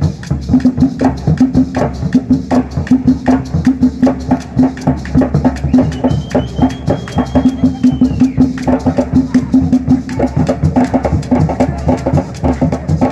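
Music with a steady, fast drum beat over a repeating low note. Midway through, a high tone slides up, holds for a couple of seconds and then drops away.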